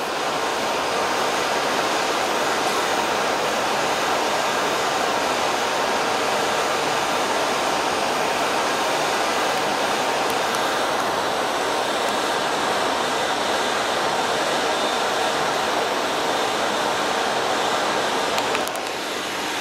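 Steady rushing noise of blown air, like a ventilation or heater blower, with no pitch and no rhythm. It drops slightly near the end.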